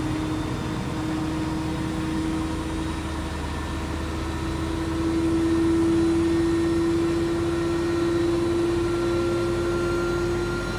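Beko WMB71643 PTSI washing machine spinning its drum, driven by its ProSmart Inverter motor. A steady motor whine rises slowly in pitch as the drum gathers speed, with a low rumble underneath, and it gets a little louder about halfway through.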